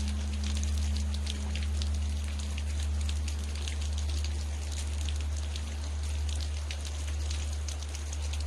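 Rain pattering in steady drops, over the lingering deep hum of a large Korean temple bell, with one of its higher tones dying away over the first several seconds.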